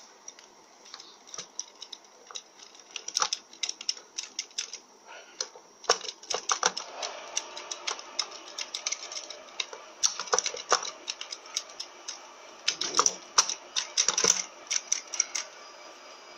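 Irregular light metallic clicks and clatter as a clutch drum is rotated back and forth by hand inside a Mazda FN4A-EL automatic transmission case, its clutch plates' teeth catching as they are worked into place on the hub.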